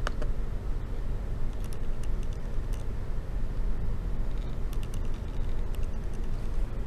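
Scattered light clicks on a MacBook, in two short clusters, as the Apple menu is used to restart it, over a steady low hum.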